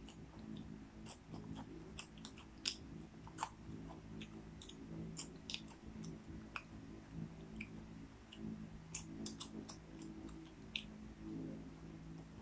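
A person chewing popcorn, with irregular crisp crunches and clicks.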